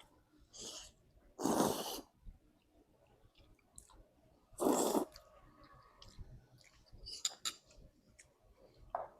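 Someone eating at close range: two short, loud breathy bursts, then faint chewing and light clicks of cutlery.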